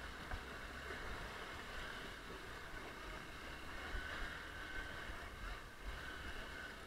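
Hero Impulse's single-cylinder engine running at low speed, faint and muffled, as the dirt bike picks its way slowly over a rocky trail.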